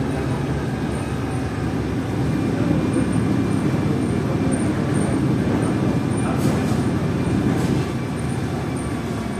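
Cabin noise of a 1976 city bus on the move: the engine runs steadily under the floor, with a couple of light clicks or rattles from the body about two-thirds of the way in. The noise eases slightly near the end.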